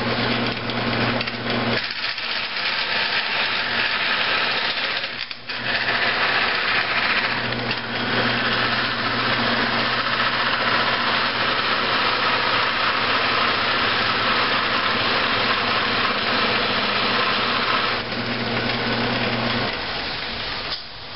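Wood lathe motor humming steadily while a turning tool cuts into the spinning cedar lamp blank at its neck next to the chuck, a steady hissing cut that is loudest through the middle of the stretch. The cut is thinning the neck to part the lamp off the chuck. The motor hum stops near the end.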